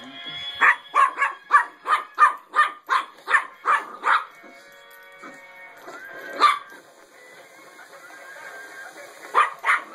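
Yorkshire terrier puppy barking in rapid sharp yaps, about three a second for the first four seconds, then a single bark and a short burst of three or four near the end. Underneath plays the tinny electronic song of a battery-powered singing penguin Christmas toy.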